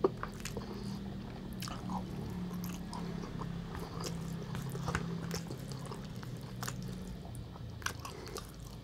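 Chewing and mouth sounds of a person eating rice, with scattered light clicks of a spoon against a plastic takeaway tray, over a low steady hum.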